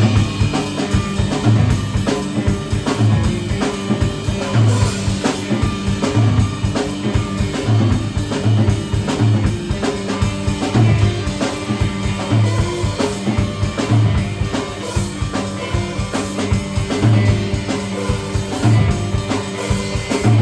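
A live band playing an instrumental passage. The drum kit keeps a steady beat of snare and rimshot strokes, with a low bass-drum pulse roughly every second and a half, over a sustained low drone.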